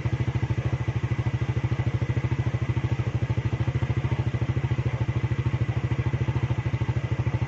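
Motorcycle engine running steadily at low speed: an even, rapid low putter.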